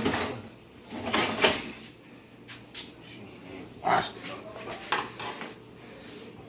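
Dishes and metal utensils clinking and knocking together in a series of separate clatters.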